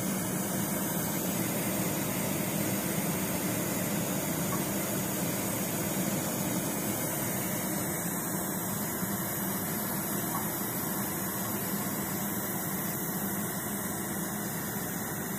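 Daerim Lightning No. 105 brass pressurized kerosene stove burning steadily: the burner gives an even, continuous rushing hiss with a low hum underneath.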